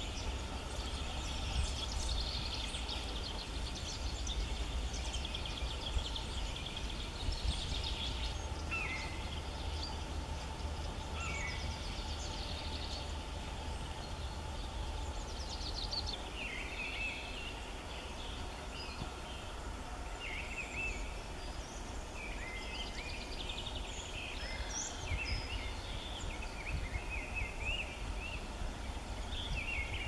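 Small woodland birds calling and singing on and off: many short chirps and rapid trills, with brief gliding notes later on. Under them runs a steady low rumble.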